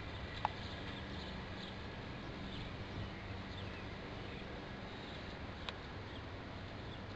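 Two sharp clicks, about five seconds apart, as aluminum windshield trim is pressed by hand into the rubber seal around the glass. Faint bird chirps and a low steady hum run behind them.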